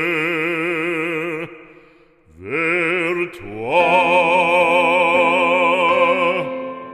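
Solo operatic voice singing a French sacred song, holding long notes with a wide vibrato. One note fades out about a second and a half in, then the voice slides up into another long held note that ends shortly before the close.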